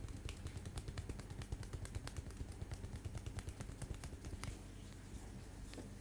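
Rapid percussive tapping of a head massage, several quick taps a second, stopping about four and a half seconds in.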